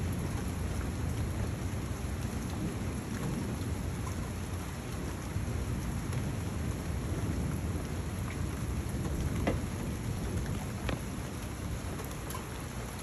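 Rain falling steadily during a thunderstorm, with thunder rumbling low underneath. A couple of sharp taps sound about two-thirds of the way through.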